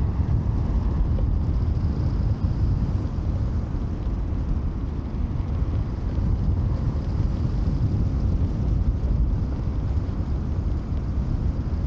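Steady rush of wind over a camera microphone mounted on a hang glider's wing in gliding flight, heaviest in the low end.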